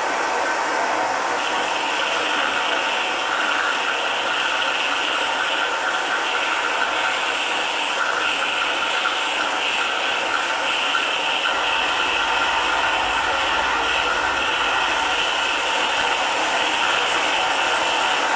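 Live improvised noise music imitating textile-mill machinery: a steady, grinding, ratchet-like mechanical texture. A higher hissing layer comes in about a second and a half in.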